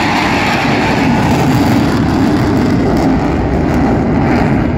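Steady, loud roar of jet engines from four Blue Angels F/A-18 Super Hornets flying past in diamond formation.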